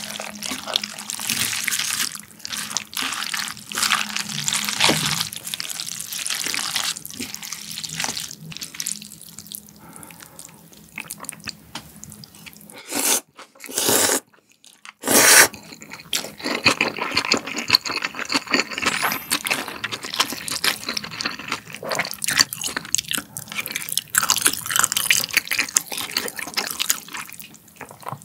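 Chopsticks mixing chewy jjolmyeon noodles in a thin, watery spicy sauce, giving wet squelching and dripping sounds. About halfway through come two short, loud noodle slurps, followed by wet chewing and more handling of the noodles.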